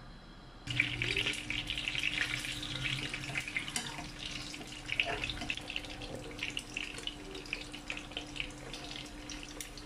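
Peeled boiled eggs frying in a little hot oil in a nonstick pan: a steady sizzle dense with small crackling pops. It starts suddenly under a second in.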